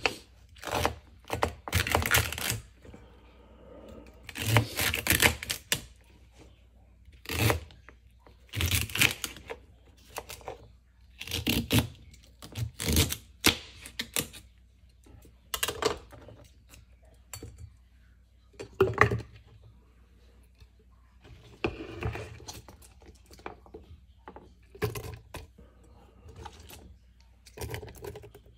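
Knife chopping crisp celery stalks on a cutting board: crunchy cuts and knocks on the board, coming in irregular runs with short pauses between.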